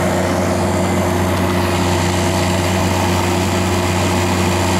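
A wine cooler's newly replaced hermetic refrigeration compressor running, with a steady low hum that does not change. It is running normally after the repair.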